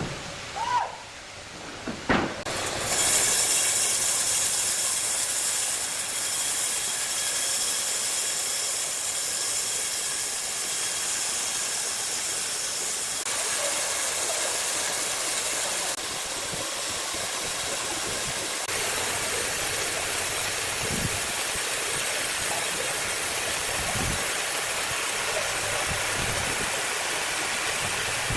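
Large wood saw cutting through timber: a few knocks, then about three seconds in a steady, high-pitched hissing cut sets in and runs on.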